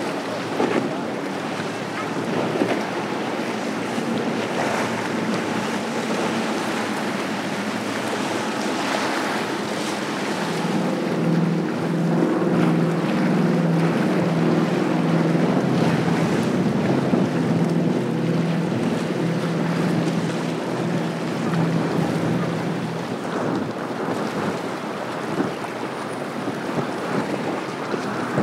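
Center-console boats running fast on open water: wind buffets the microphone and water rushes off the hulls throughout. From about ten seconds in until about twenty-three seconds, the Deep Impact 399 Sport's multiple outboard engines add a steady, pitched engine hum.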